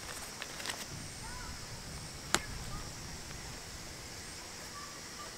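A few light clicks and then one short, sharp snap about two seconds in, from a knife blade working at the plastic tag fastener on a tarp's nylon stuff sack.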